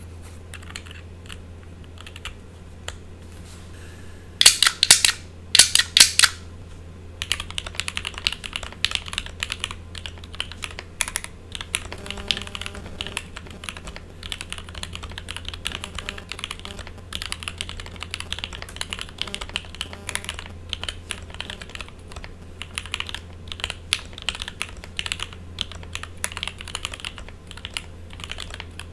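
Typing on a Shirei40 40% custom mechanical keyboard with Lavender switches, GMK keycaps and an acrylic plate and case. A few light taps come first, then a cluster of loud clacks about four to six seconds in, then dense continuous typing from about seven seconds. A steady low buzz runs underneath throughout.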